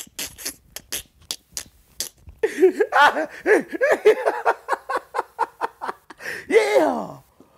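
A man laughing hard: first a run of short sharp breathy sounds, then from about two and a half seconds in loud rhythmic bursts of pitched laughter that stop shortly before the end.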